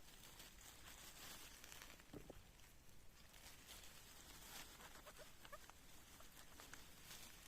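Near silence: quiet forest ambience, with a few faint small rustles and chirps.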